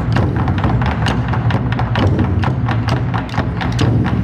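A troupe of large Chinese barrel drums beaten with sticks together in a fast, dense rhythm, with a deep, sustained boom under many sharp strikes.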